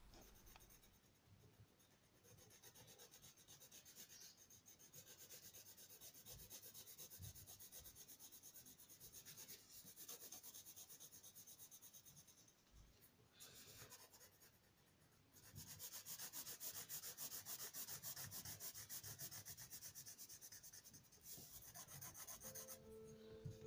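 Coloured pencil shading on paper: a faint, fast scratchy rubbing of the pencil across the sheet. It eases off a little past halfway and is louder in the last third. Soft music comes in near the end.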